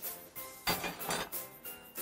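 Light background music with a steady beat.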